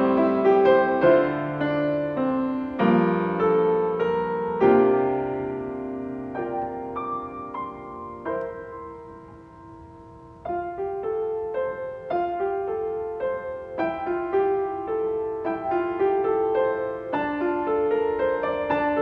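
Solo piano playing a slow, gentle piece in chords that ring on and decay. About halfway through, the sound thins to one chord fading away for a couple of seconds before the playing picks up again.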